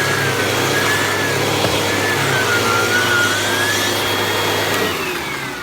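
Hoover WindTunnel Rewind vacuum running with its carpet attachment, sucking pet hair off a carpeted stair, its motor whine wavering slightly. Near the end it is switched off and the whine falls away in pitch as the motor spins down.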